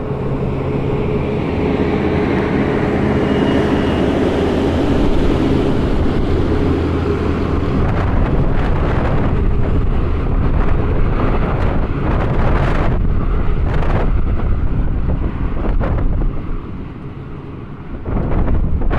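VIA Rail passenger train pulling out, pushed by a Siemens Charger SCV-42 diesel-electric locomotive at the rear: the coaches roll past with a steady rumble, then the locomotive's diesel engine goes by with a steady hum and the train draws away. Gusty wind buffets the microphone, with a strong gust near the end.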